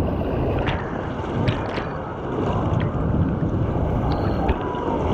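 Churning, rushing water of a fast water-park wave river splashing around a swimmer, with scattered splashes and wind buffeting the microphone.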